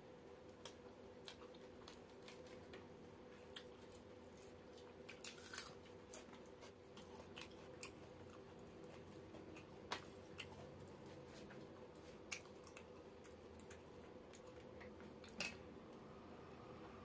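Faint eating sounds from people eating roti and chicken curry by hand: soft chewing and scattered small clicks and taps as roti is torn and food is picked from steel plates, the sharpest about ten, twelve and fifteen seconds in, over a faint steady hum.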